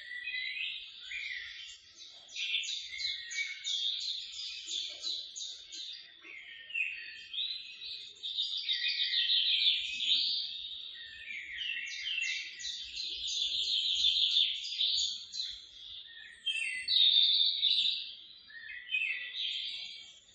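A dense chorus of high chirping calls from many birds at a nesting colony, made of rapid repeated notes, rising and falling in loudness in waves.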